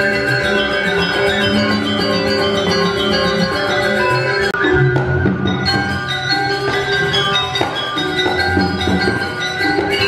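Balinese gamelan orchestra playing live, its rows of bronze metallophones chiming in many overlapping steady tones over a deeper ringing bass.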